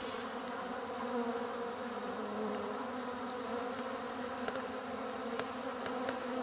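Honeybees buzzing in flight: a steady drone of overlapping wingbeat hums.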